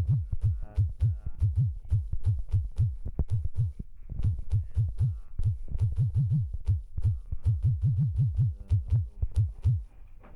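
Background music with a steady, deep bass beat, about four beats a second, pausing briefly partway through and fading near the end.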